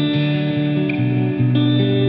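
Background instrumental music: held notes over a bass line that moves to a new note about a second in and again soon after.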